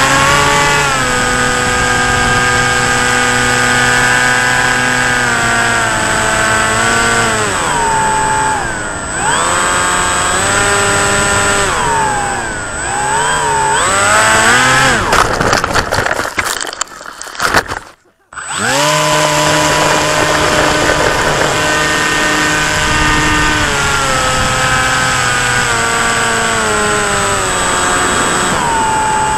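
Electric motor and propeller of a radio-controlled plane, heard from the plane's own camera, running with a steady whine that rises and falls as the throttle is worked. About two thirds of the way through it sputters and cuts out for a moment, then comes back steady, dropping in pitch near the end.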